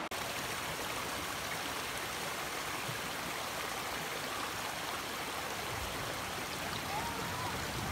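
Steady rush of sea water washing over a rocky shore.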